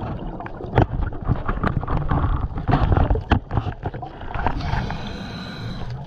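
Underwater sound through a diver's camera housing: irregular bubbling and clicking from scuba exhaust bubbles and handling, over a low rumble. A softer, steady hiss runs for a second or so near the end.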